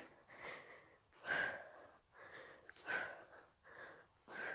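A woman breathing hard from the exertion of exercise: short, noisy breaths in and out, about one a second, some louder than others.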